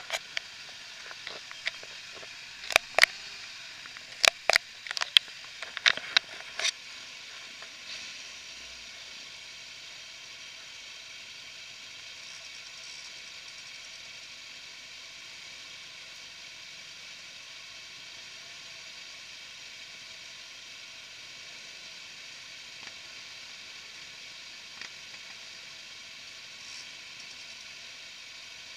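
Steady hiss, with a cluster of sharp clicks or taps in the first seven seconds, then only the hiss.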